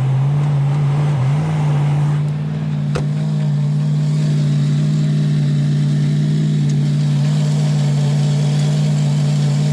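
Old Ford one-ton pickup's engine running steadily, its pitch stepping up slightly about a second in, with a single sharp click about three seconds in.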